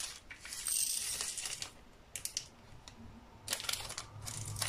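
Small plastic diamond-painting drills rattling and clicking as their plastic bag is handled. The sound comes in bursts: about a second of it near the start, a few clicks in the middle, and a denser run of clicks near the end.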